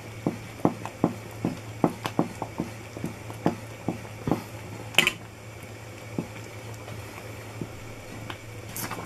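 Thick fudge mixture of sugar, condensed milk and butter boiling in a pan, its bubbles popping irregularly a few times a second over a steady low hum. About five seconds in a utensil clinks once against the pan, and the popping thins out afterwards.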